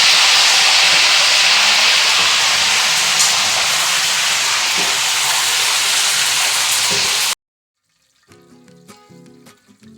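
Fish deep-frying in very hot oil: a loud, steady sizzle that cuts off suddenly about seven seconds in. Soft plucked-guitar music follows near the end.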